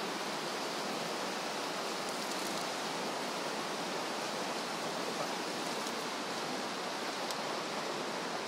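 The Virgin River rushing steadily over rocks: an even, unbroken wash of water noise.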